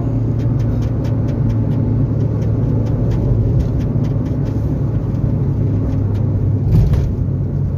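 Suzuki XL7 being driven, heard from inside the cabin: steady engine and road rumble with a low hum, and one louder bump about seven seconds in.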